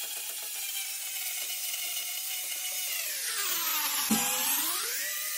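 Angle grinder fitted with a diamond core bit boring a hole into a granite countertop, its motor giving a high whine. The whine dips in pitch about three seconds in, then climbs back. There is a sharp knock about four seconds in.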